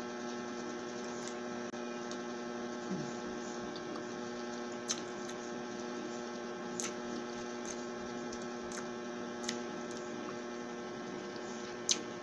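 Steady electrical hum made of several even tones, with a few short, sharp mouth clicks from chewing boiled egg, the loudest near the end.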